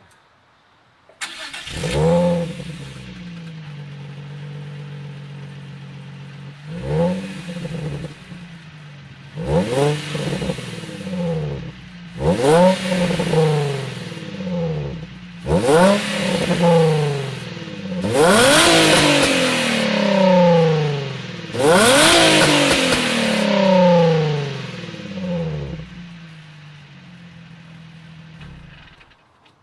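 A 2003 Nissan 350Z's 3.5-litre V6 starts about a second in, settles to idle, and is revved about six times through its exhaust, the later revs higher and held longer, before dropping back to idle and shutting off near the end.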